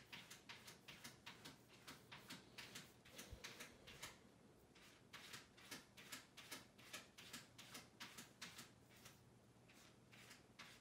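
Faint, quick brushing strokes, a few a second, of a cotton pad being rubbed inside a dog's ear and over its fur to clean out dirt.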